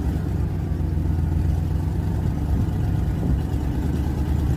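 A vehicle engine running steadily, a low, even rumble with no change in speed.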